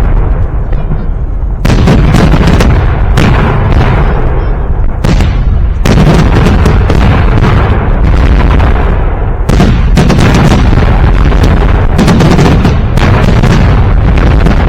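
Loud fireworks salute: booms and cracks of shells bursting overhead at irregular intervals over a continuous deep rumble.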